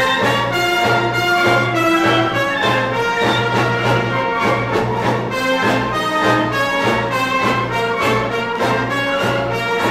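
Orchestral big-band music with prominent brass, trombones and trumpets playing over a steady beat, from a 1958 RCA Victor stereophonic demonstration LP.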